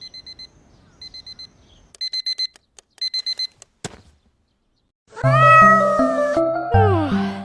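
A digital alarm clock beeping in quick groups of four, about one group a second and getting louder, is cut off by a click just before four seconds in. About a second later soft music begins, and a cat meows twice over it.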